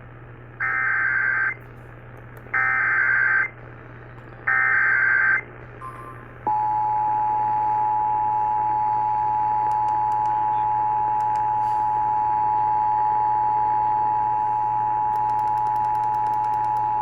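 Emergency Alert System signal: three short screeching SAME header data bursts, each about a second long with a second's gap between them, followed by the steady two-tone EAS attention signal held for about ten seconds and cut off sharply.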